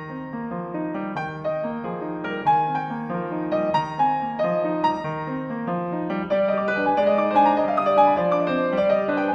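Solo piano playing a flowing, repeating broken-chord figure in the middle register. It grows louder and climbs higher about two-thirds of the way in.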